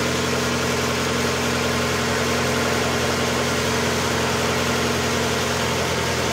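1992 Mazda Miata's 1.6-litre four-cylinder engine idling steadily. The lifters are quiet now that the fresh oil is up to pressure.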